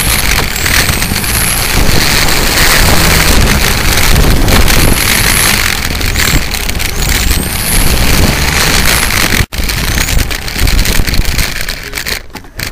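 Radio-controlled car racing, heard from a camera on its own spoiler: a high motor whine rises and falls several times over heavy wind and road noise on the microphone. The sound cuts out for an instant about nine and a half seconds in and dies down near the end.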